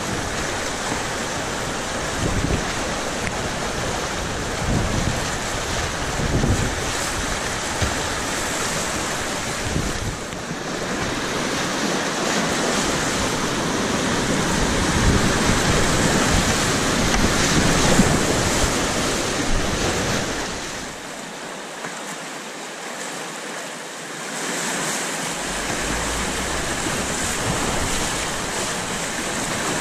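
Whitewater rapids rushing and splashing close around a kayak, heard from a camera on the boat, with low buffeting thumps on the microphone in the first third. The rush eases a little about three-quarters of the way through.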